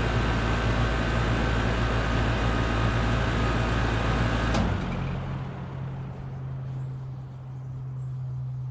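Goodman central air conditioner's outdoor unit running, its compressor humming and condenser fan blowing. A sharp click about four and a half seconds in marks the shutdown. The noise then falls away as the fan spins down, leaving a steady low hum.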